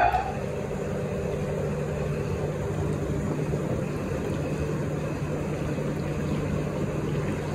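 Steady low mechanical hum with a constant drone, unchanging throughout.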